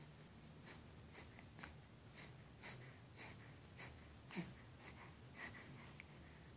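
Near silence with faint scratchy rustles and soft clicks: a baby moving his arms against his sleeper and a plush blanket. One brief, louder sound comes about four and a half seconds in.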